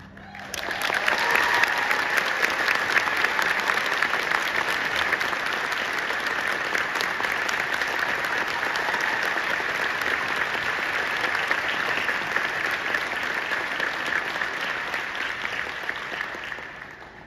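Audience applauding in a concert hall. The clapping starts about half a second in, holds steady, and dies away near the end.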